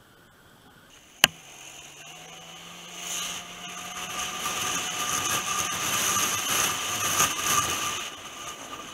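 Motor scooter engine running as the scooter pulls away and picks up speed, with wind rushing over the microphone building from about three seconds in and easing near the end. One sharp click about a second in.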